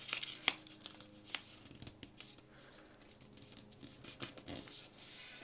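Faint rustling and creasing of a folded sheet of paper as fingers bring a corner down and press the fold flat, with a few soft ticks and one sharper click about half a second in.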